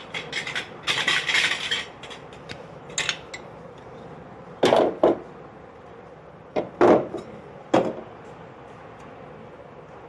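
Metal pan supports being set down on a stainless-steel gas stove top: a scraping rattle in the first two seconds, then two groups of metal clanks around the middle as each support is seated over its burner.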